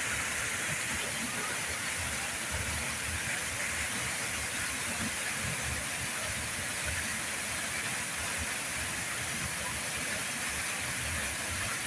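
Waterfall: the steady rushing hiss of falling water, even and unbroken.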